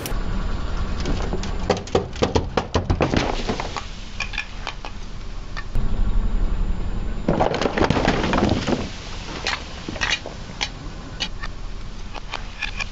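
Full aluminium soda cans crushed under a car tyre: bunches of sharp cracks and crinkling metal as the cans buckle and split, with a louder hiss of fizzy soda spraying out partway through.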